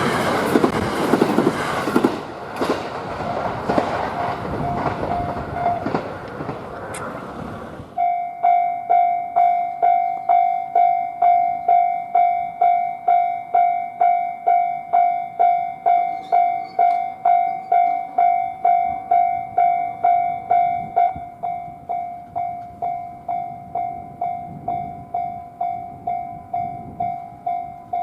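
A train running through a level crossing, its wheels clattering, for the first eight seconds or so. Then the Japanese crossing alarm bell rings in an even, steady "kan-kan" rhythm of about one and a half strikes a second. The bell gets quieter about two thirds of the way through.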